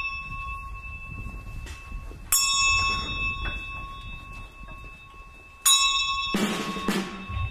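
A small bell struck twice, about three and a half seconds apart, each strike ringing on with a clear, steady tone. Near the end, procession drums start beating.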